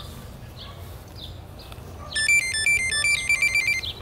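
The hexacopter drone's electronic buzzer playing a short beeping tune about two seconds in: a run of stepped pitched beeps that quickens into rapid repeated notes before cutting off. It is a status tune from the flight controller or motor controllers. Faint bird chirps sound in the background.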